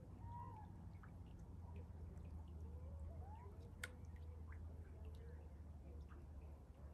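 Quiet outdoor ambience: a low steady rumble with a few faint, rising and falling animal calls and a single sharp click about four seconds in.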